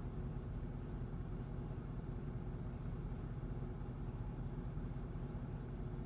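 Cadillac STS V8 engine idling steadily, a low even hum heard from inside the cabin.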